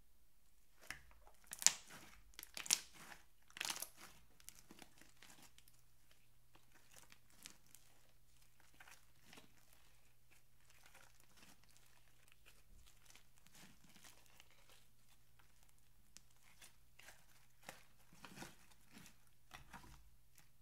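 Thick slime being stretched, folded and squished by hand, with sharp crackling pops of trapped air bubbles. The crackles come in a loud cluster in the first few seconds, thin out, then pick up again near the end.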